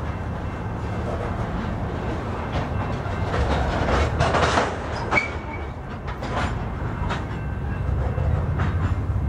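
Freight train of covered hopper cars rolling past close by: steady wheel rumble with repeated clicks and clacks from the wheels over the rail. There is a brief high squeal about halfway through.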